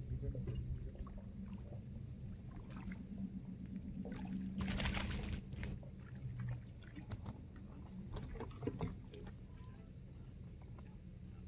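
Low, steady drone of a boat motor on the lake, fading out after about six seconds. About four and a half seconds in comes a brief splash as a small fish is pulled from the water, with scattered small clicks and knocks from fishing gear.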